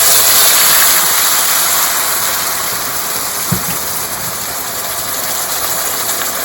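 Blended onion, ginger and crayfish paste dropped into hot frying oil, sizzling loudly: the hiss starts all at once and slowly eases off. One soft knock about three and a half seconds in.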